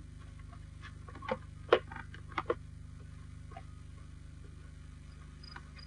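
A few light knocks and clicks, bunched between about one and two and a half seconds in, over the steady low hum of an old film soundtrack.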